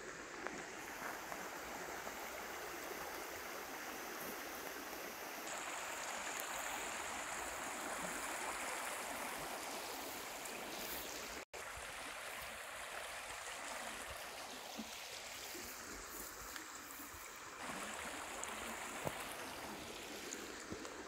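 Shallow river running over a gravel bed: a steady rush of flowing water. The sound cuts out for an instant about halfway through.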